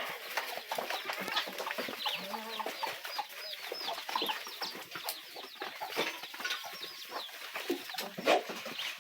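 Birds chirping rapidly in many short falling chirps, over the shuffle and clatter of a goat herd crowding in to feed.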